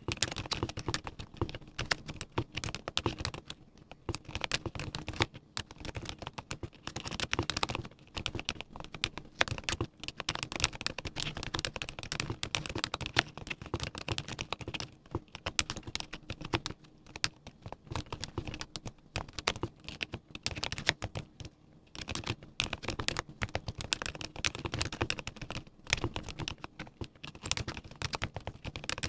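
Continuous fast typing on a Mode Eighty mechanical keyboard with lubed silent Gateron Ink V2 switches, a full brass plate and PBT keycaps: quick soft clacks with a few short pauses.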